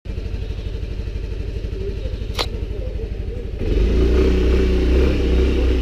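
Yamaha Neo 125 scooter's single-cylinder engine idling with a steady pulse, a sharp click a little over two seconds in, then the engine revs up and the scooter pulls away at about three and a half seconds.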